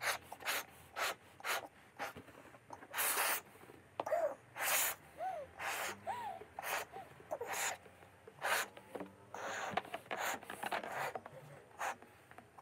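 Latex balloon being blown up by mouth: a run of quick breaths in and puffs of air pushed into the balloon, the puffs getting longer after the first few seconds, with a few short squeaks in between.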